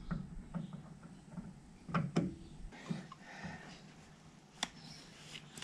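A few sharp clicks and light knocks, two close together about two seconds in and one more near the end, from a grease gun being worked on the grease nipples of a Honda BF30 outboard's mounting bracket.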